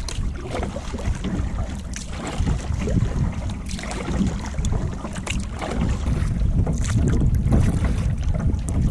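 Canoe being paddled across a lake: scattered paddle splashes and water sounds, with wind buffeting the microphone in a steady deep rumble.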